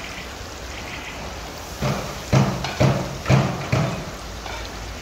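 Giant plov kazan sizzling steadily under a layer of chickpeas. From about two seconds in, a long-handled steel skimmer pushes across the food and the pan in five quick strokes, about two a second.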